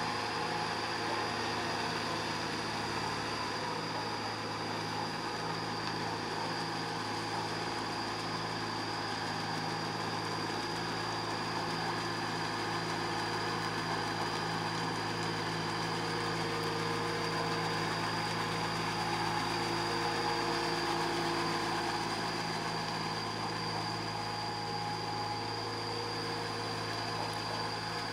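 Compact Kubota tractor's diesel engine running steadily as it pulls a levelling board through a flooded paddy on steel cage wheels.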